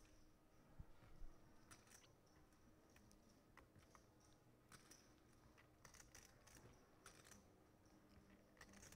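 Near silence with scattered faint clicks of poker chips being handled at the table.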